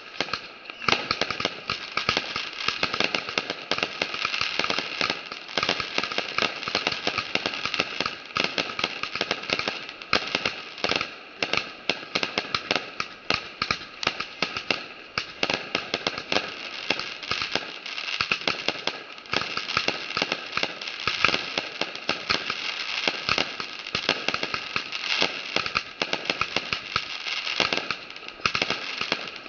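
Multi-shot consumer firework cake firing a rapid, unbroken stream of shots, a dense run of pops and crackles with small crackling star bursts.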